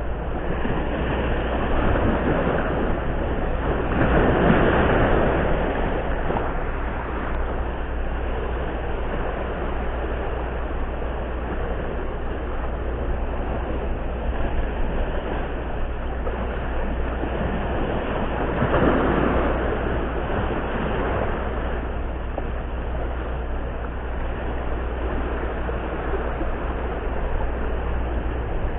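Sea waves washing and breaking against shoreline rocks, swelling louder about four seconds in and again near nineteen seconds, over a steady low rumble.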